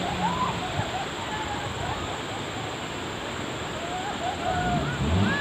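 Steady rushing and splashing of water, with distant voices shouting faintly over it. An off-road jeep's engine runs low underneath and grows louder near the end.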